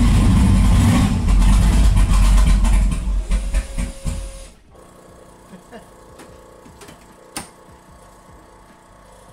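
Turbocharged LS-based V8 drag car engine held on its launch limiter against the brake, loud and steady while it builds boost for the starting line. About three seconds in the sound falls away, and it is quiet by about four and a half seconds in, leaving only faint clicks and one sharp click near the end.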